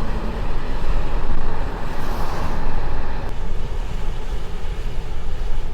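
Steady road and tyre noise of a car driving on a wet road, heard from inside the cabin: a low rumble under a hiss that swells louder about two seconds in.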